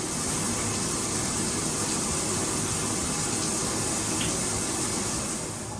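Water running hard and steadily from a tap or shower, a strong hiss that stops near the end.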